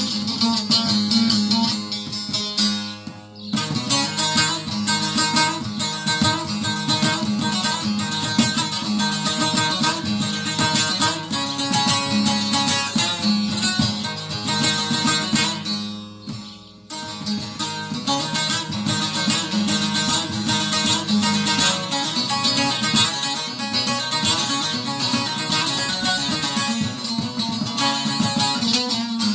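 Two long-necked saz (bağlama) lutes played together, an instrumental Turkish folk tune of quick plucked notes over a steady low note. The playing breaks off briefly twice, about three seconds in and again around halfway.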